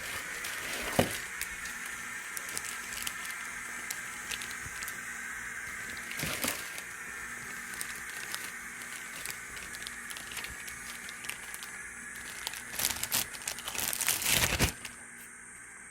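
Irregular crackling and crinkling handling noises over a steady hiss, with a sharp click about a second in and a louder flurry of crackles near the end.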